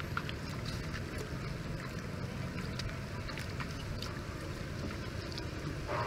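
Steady wind rumbling on the microphone, with a few faint ticks over it.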